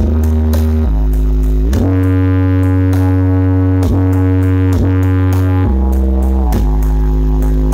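Brewog Audio's horeg sound system, a stage-wide wall of subwoofer cabinets, playing a loud sound-check track. A heavy bass line of long held notes slides from one pitch to the next every second or two.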